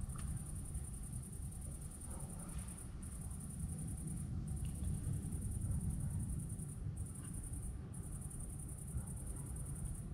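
Crickets singing at night, a steady high-pitched trill that breaks off briefly several times, over a continuous low rumbling noise.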